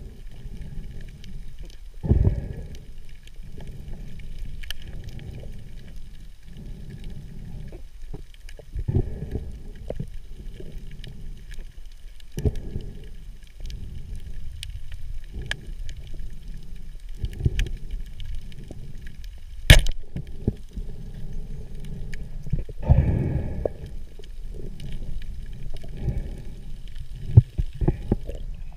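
Muffled underwater water noise through an action camera's housing, a low rumble that swells and fades every couple of seconds as the diver moves. About 20 seconds in comes a single sharp crack, the speargun firing.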